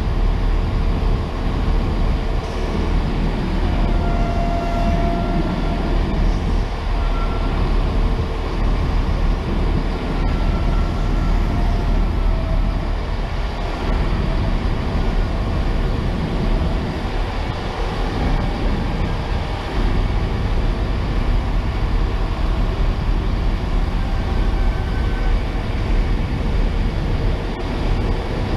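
A rake of Mark 3 passenger coaches rolling slowly past: a steady rumble of wheels on rail, with faint brief squeals now and then.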